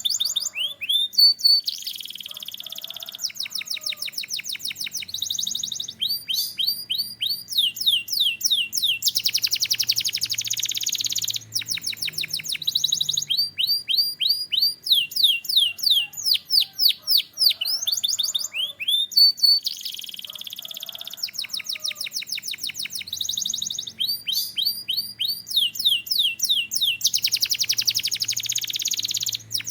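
Domestic canary singing a long, unbroken song. It is made of runs of quick, repeated high sweeping notes, each run switching to a new note every second or two, broken by fast rattling trills.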